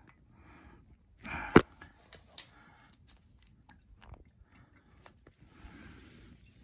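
Quiet hand-tool handling at a brake caliper's bleeder screw: one sharp metallic click about a second and a half in as the wrench comes off, a few small ticks after it, and a soft rustle of gloves and bleeder hose near the end.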